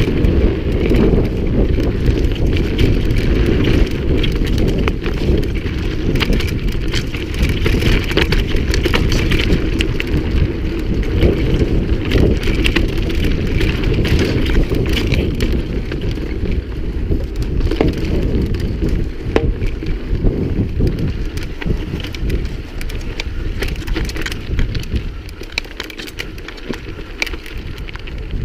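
Mountain bike riding fast down a dirt and gravel trail: constant rumble of tyres over the ground with many sharp clicks and rattles from the bike on rough stones, under heavy wind noise on the microphone. It eases off slightly for a couple of seconds near the end.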